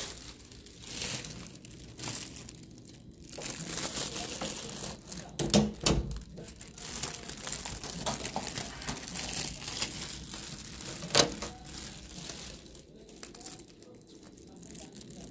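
Thin plastic carrier bag crinkling and rustling as it is grabbed and carried. A few sharp knocks cut through, the loudest a little before halfway and another about three quarters of the way in.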